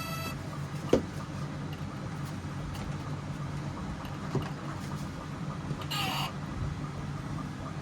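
Steady low mechanical hum with a few scattered sharp clicks and a brief higher-pitched chirp about six seconds in.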